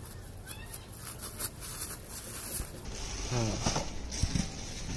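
Clear plastic packaging bags crinkling and rustling as they are handled around PVC weight plates: a run of light, irregular crackles through the first three seconds.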